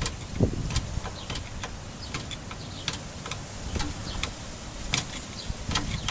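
Irregular light clicks from the rear drum brake's adjuster being worked on a 1993 Honda Civic, setting the shoes out until the drum drags, with a duller knock about half a second in.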